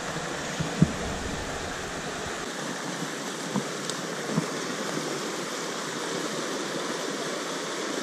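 Small mountain stream rushing steadily over rocks and a little cascade. A brief sharp tap sounds about a second in.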